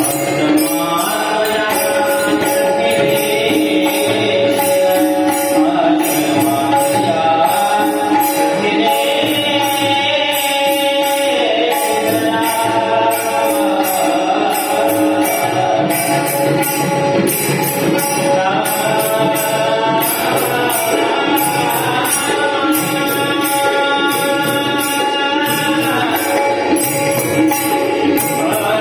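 A devotional bhajan sung solo, the voice gliding and holding long notes, over a steady jingling percussion beat.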